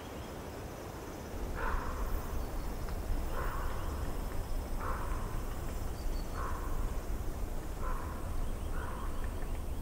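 A bird calling over and over: short harsh calls about every second and a half, beginning nearly two seconds in, over a low rumble.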